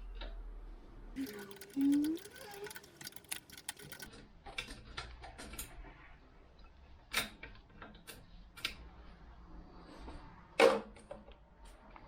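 Workshop handling noise: a quick run of clicks for a couple of seconds, then scattered knocks and clunks of tools and metal parts, with two sharper knocks about seven and ten and a half seconds in.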